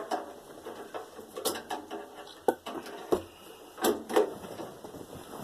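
Scattered clicks and knocks of tools and metal parts being handled while a microwave oven is taken apart, about five sharp taps at irregular intervals.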